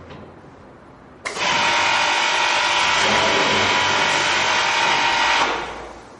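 A small motor starts with a click about a second in and runs steadily with a high whine for about four seconds, then winds down.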